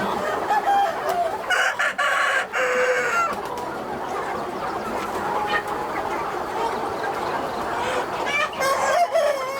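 A large flock of native chickens clucking steadily, with a rooster crowing about a second and a half in and again near the end.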